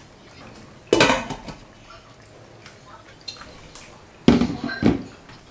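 Kitchenware clattering: a sharp knock about a second in, then two more about half a second apart near the end, as pots and bowls are handled and set down.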